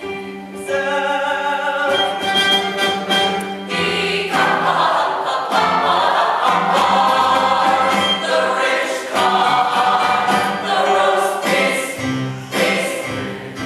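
Cast voices singing a musical-theatre number with musical accompaniment.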